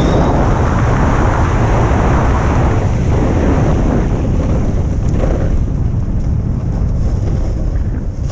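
Wind buffeting the microphone over the steady scrape and hiss of a snowboard sliding and carving over packed snow during a run.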